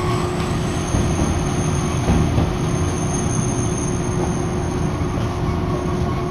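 Hankai Line streetcar running along the street, heard from inside the car: a steady rumble of the wheels on the rails and the running gear, with a constant low hum under it.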